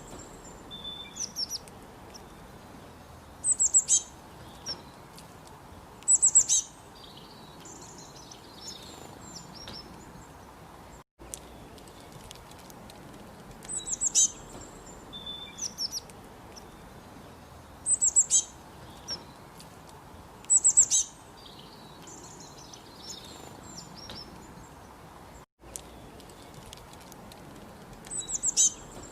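Birds chirping: short, high-pitched clusters of chirps every few seconds over a steady soft hiss, with the sound cutting out for an instant twice.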